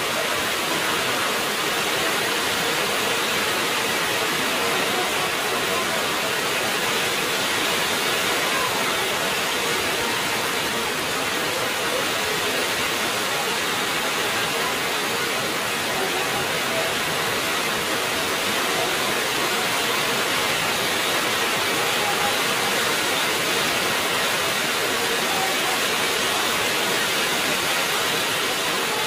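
Heavy rain falling, a steady even hiss with no let-up.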